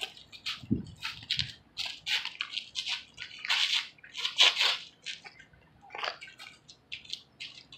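Light boxing sparring: a run of short scuffs and slaps from sneakers shuffling on asphalt and gloved punches, the loudest cluster about halfway through.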